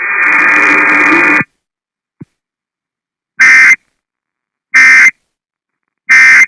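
Emergency Alert System end-of-message data tones: three short identical bursts of buzzy digital tones about 1.3 s apart, closing the severe thunderstorm warning broadcast. Before the bursts, the tail of the broadcast audio cuts off about a second and a half in.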